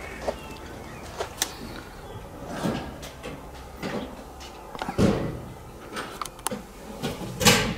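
Irregular knocks and clicks, with two louder thumps, one about five seconds in and one near the end.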